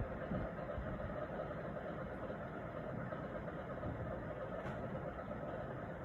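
Condensate pump on a Mitsubishi mini split running with a steady, continuous loud drone, strongest in the midrange. The pump runs constantly, which the owner takes for a fault in the installation.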